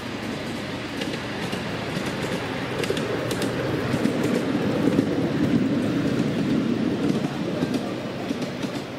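Miniature railway train with passengers riding on the cars rolling along a raised track and passing close by. It is a steady low rumble with scattered clicks, growing louder to a peak about halfway through and then fading as it moves away.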